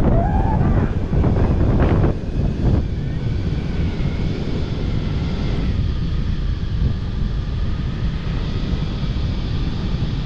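Strong wind buffeting the microphone: a heavy, steady low rumble, loudest for the first couple of seconds and then a little lower.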